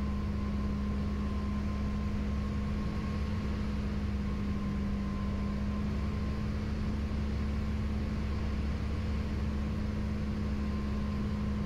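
Piper Turbo Arrow's turbocharged piston engine and propeller droning steadily, heard inside the cabin during the landing approach.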